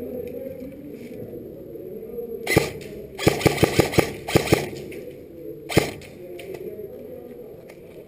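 Airsoft guns firing: a single shot, then a quick string of about seven sharp shots, then one more shot.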